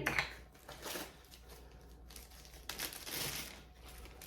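Small plastic snack baggie crinkling as it is handled and filled with a portion of almonds, loudest for about a second near the end.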